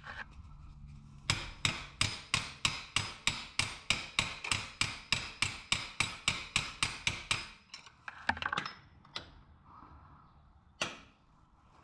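Hammer tapping on metal at a motorcycle's shifter linkage: a rapid, even run of ringing metallic taps, about four a second for some six seconds, then a few more single strikes near the end.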